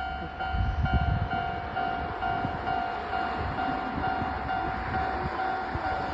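Japanese railway level-crossing warning bell ringing at about two rings a second, over the low rumble of a train.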